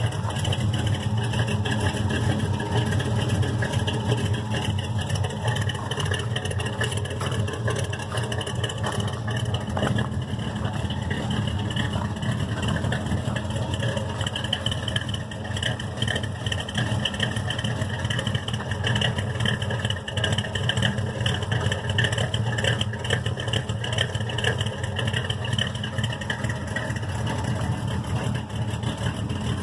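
1978 Chevrolet C10 pickup's engine idling steadily, heard through its plain open exhaust pipe.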